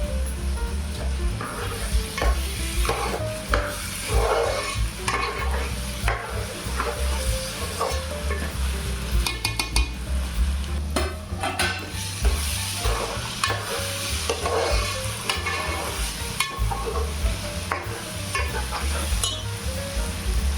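Chopped tomatoes and onions frying in hot oil in a pan, sizzling as a spoon stirs and scrapes through them, with repeated scrapes and clicks against the pan. A steady low hum runs underneath.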